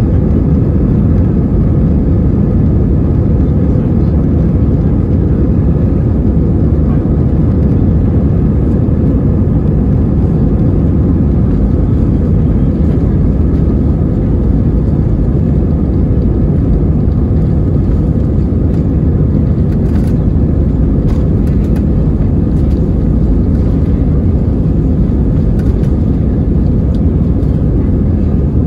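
Cabin noise inside an Airbus A320-216 taxiing: a steady, loud low rumble from its CFM56-5B engines at taxi power and the landing gear rolling over the taxiway, with no spool-up.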